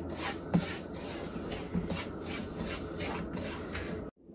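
A wooden spatula rubbing and scraping through dry semolina in a frying pan, in quick repeated strokes about three a second, as the semolina is dry-roasted for halwa. The sound cuts off suddenly near the end.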